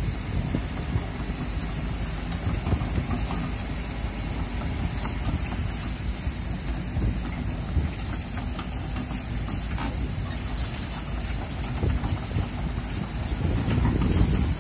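Kobelco crawler excavator's diesel engine running, with gusting wind buffeting the microphone.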